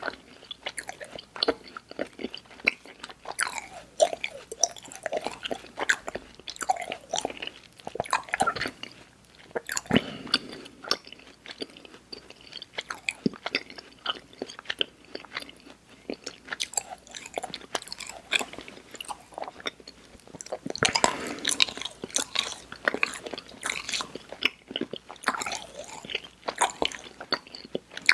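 Close-miked mouth sounds of someone chewing soft, chewy sour candy: irregular wet smacks, clicks and squishes.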